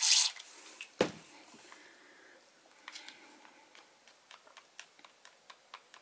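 A hand spray bottle squirts water hard into a plastic cup of acrylic paint, followed by a sharp knock about a second in. After that a wooden craft stick stirs the thinned paint, giving light, irregular clicks and taps against the cup.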